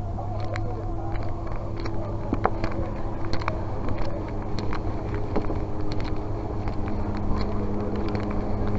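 Street traffic: a steady low hum from idling vehicle engines, with scattered light clicks and knocks.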